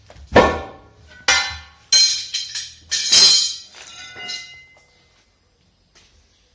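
Steel tire pry bars clanking against a steel truck wheel rim: about five sharp metallic strikes in quick succession, each ringing on briefly, then a couple of lighter knocks before it falls quiet.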